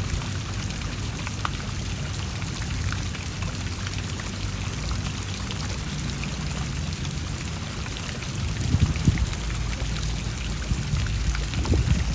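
Steady patter of rain, with a low rumble underneath and a few heavier low bumps about nine seconds in.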